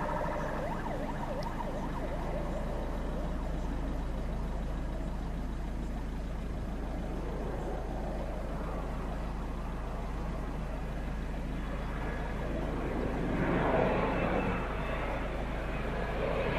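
Steady distant rush of the Air Astana Embraer E190's jet engines as the airliner rolls out after landing, swelling near the end, with faint wavering siren tones in the first seconds.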